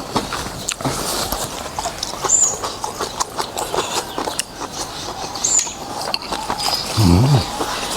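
Close-up eating sounds of noodles in soup: wet chewing, slurping and mouth clicks, many small ticks in a row. A bird gives a short high chirp about every three seconds, and a brief low hum comes near the end.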